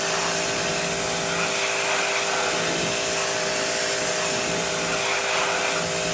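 Vap pressure washer running steadily, a motor hum under the hiss of the high-pressure water jet striking a motorcycle chain and rear sprocket. It is rinsing off degreaser-softened grime with the jet alone.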